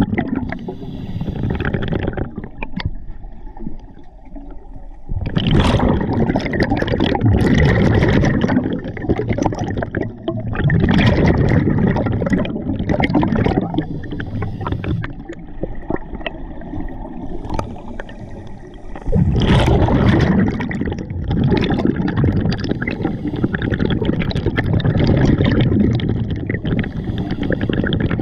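Scuba diver breathing through a regulator underwater: loud gurgling bursts of exhaled bubbles every few seconds, with quieter stretches between breaths.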